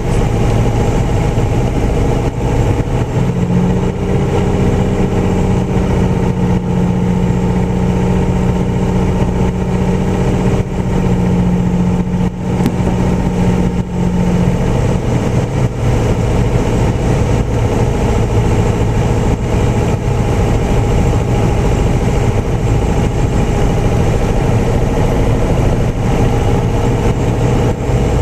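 Piper single-engine piston aircraft's engine and propeller droning steadily in the cockpit. A steady extra tone rides on it from a few seconds in until about halfway through.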